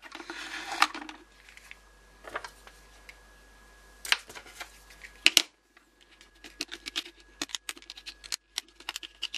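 Plastic battery-pack case being handled and pried open with a small knife: scattered clicks and knocks, two sharper ones about four and five seconds in, then a quick run of scratchy clicks and scrapes near the end as the blade works the case open.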